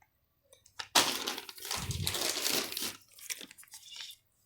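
Plastic fish-shipping bag being handled and crinkled, a dense rustle for about two seconds followed by a few smaller crackles.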